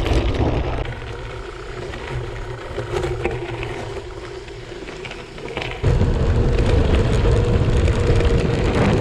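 Rumbling ride noise from a gravel bike on the move, wind and tyre noise on the microphone. It eases for a few seconds, then comes back loud suddenly about six seconds in.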